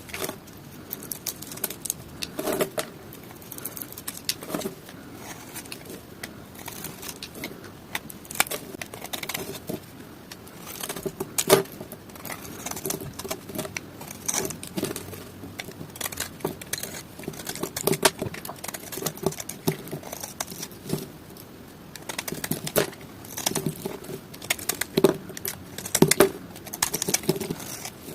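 Dry bar soap being cut with a knife: irregular crisp crackles and snaps as the blade breaks through the brittle soap, with a few louder snaps.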